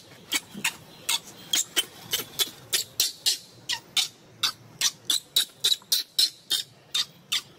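Baby macaque screaming in short, shrill squeals, about three or four a second without a break, a distress cry that the title puts down to hunger.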